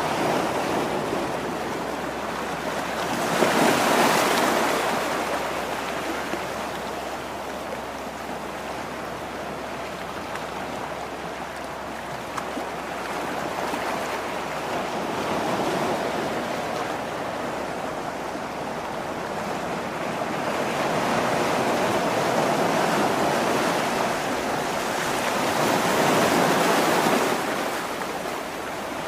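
Sea surf washing against a rocky shore, a steady rush that swells louder every several seconds as waves come in.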